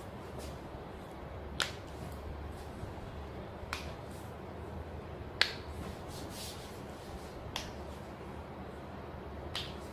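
Five sharp joint pops during a chiropractic adjustment, coming about every two seconds; the middle one is the loudest.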